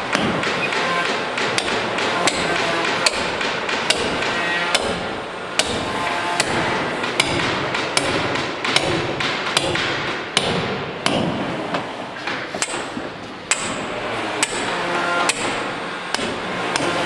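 Steady metal hammer blows on a bolt in a wooden boat's planking, about one strike every three-quarters of a second, over a constant background noise.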